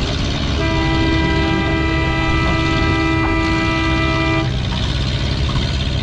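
A single steady horn blast lasting about four seconds over a tractor engine running under load. The horn is the pulling sled's speed-limit horn in a 3 mph class, which sounds when a tractor goes over the limit.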